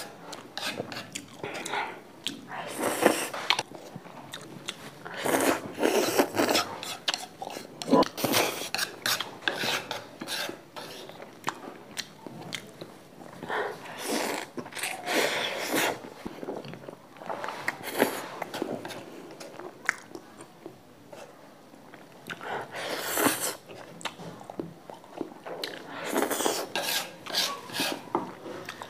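A person eating dry instant noodles with chopsticks: irregular bursts of slurping and wet chewing every second or two, with an occasional light click of chopsticks on a wooden plate.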